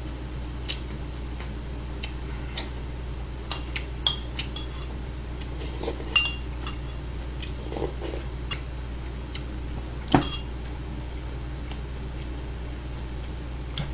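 Metal spoon clinking and scraping against a ceramic bowl while eating, scattered light clinks over a steady low hum. A sharper knock about ten seconds in as the bowl is set down on the table.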